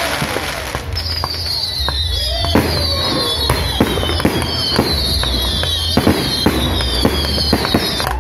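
A fireworks display firing from the ground: a rapid volley of sharp bangs, about two a second, over a run of short high whistles that each fall slightly in pitch.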